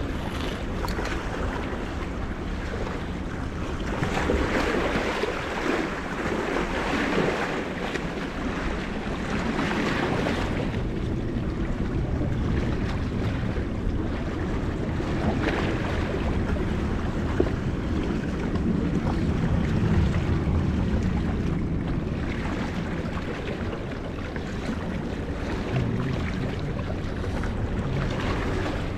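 Wind on the microphone with seawater washing against the shore, swelling and easing in several surges.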